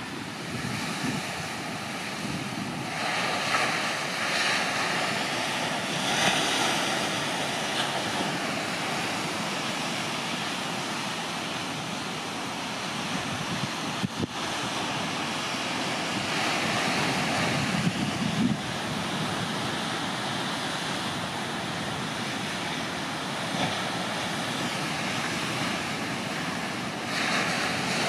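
Ocean surf breaking on a rocky shore: a steady rush of noise that swells louder several times as waves break.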